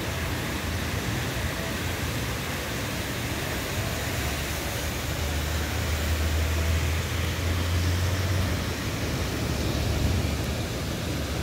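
Heavy rain with strong wind: a steady hiss of downpour, with a deeper low rumble swelling about five seconds in and easing a few seconds later.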